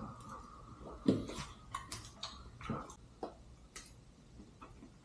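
Eating sounds: a fork clicking and tapping on a plate and against the teeth, with chewing, in scattered irregular clicks, the loudest about a second in.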